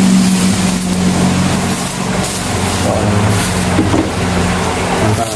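Steady low motor hum under a constant broad hiss; the hum eases off about two seconds in.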